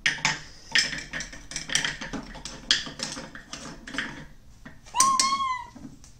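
Toy frying pan and play food clattering on a plastic children's play kitchen: a string of light clicks and knocks. About five seconds in, a short high tone rises slightly and fades.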